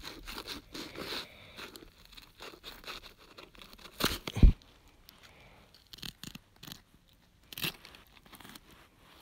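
Fillet knife cutting along the spine of a yellow perch on a plastic cutting board: a run of short, irregular cutting and scraping sounds as the blade works through toward the tail. There is a louder sound about four seconds in and another near the end.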